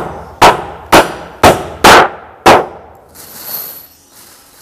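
Hammer blows on the wooden planks of a boat under construction, driving nails: six sharp strikes about half a second apart, each ringing briefly. A softer hissing noise follows near the end.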